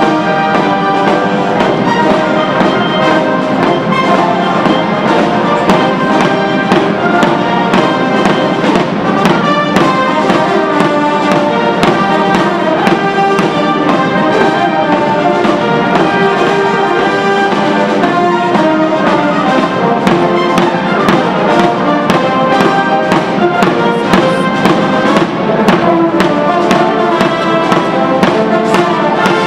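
Military band brass playing a march with a steady beat, trumpets and trombones to the fore.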